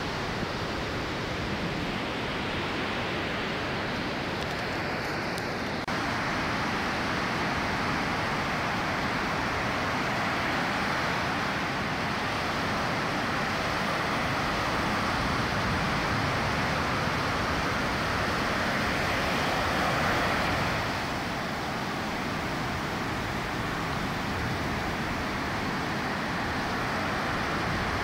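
Ocean surf breaking and washing up a black-sand beach, a steady rush of foaming water that swells to a peak about twenty seconds in and then eases.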